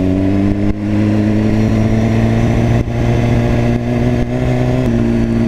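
BMW S1000RR inline-four engine pulling under acceleration, its pitch rising slowly. Near the end an upshift drops the pitch sharply.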